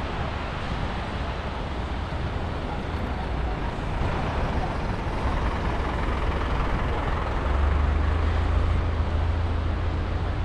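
Road traffic: a motor vehicle's low engine rumble over a steady wash of noise, growing louder about three quarters of the way through as it comes closer.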